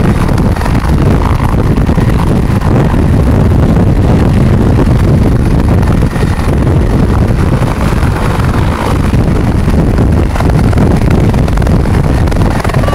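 Bell UH-1H helicopter running at close range, its rotor and turbine making a steady heavy rumble. Rotor downwash blows hard across the microphone.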